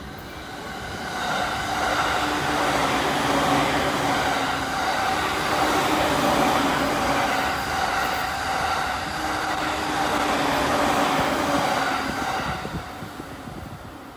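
Electric multiple-unit commuter train passing through the station at speed without stopping: a steady rumble of wheels on rail with a humming tone. It swells about a second in, holds, then dies away near the end as the last cars go by.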